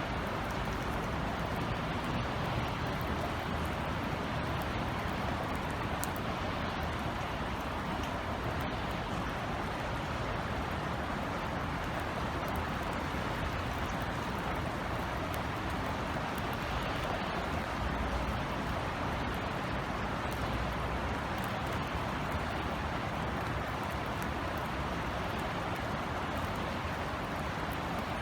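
Steady rain falling on outdoor surfaces, an even hiss with scattered faint drop ticks and a low rumble underneath.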